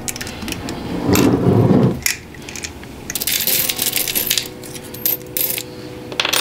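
Loose coins clinking and rattling as they are sorted by hand and dropped, a run of sharp metallic clicks and jingles while pennies are picked out of the pile.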